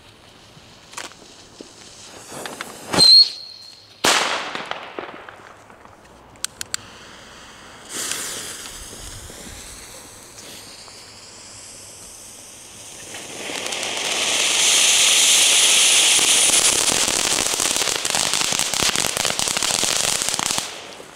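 Firework fountain spraying sparks with a loud steady hiss for about seven seconds, cutting off abruptly near the end. Before it, a sharp firecracker bang about three seconds in, a second one a second later, and a rising whistle.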